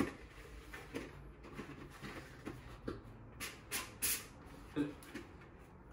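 Scattered light clicks and knocks of kitchen containers and utensils being handled, with a few short rustling sounds close together around the middle.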